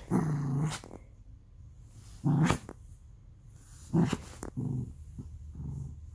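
Small dog growling in several short, low bursts while play-biting a hand: playful growls the owner calls half-hearted.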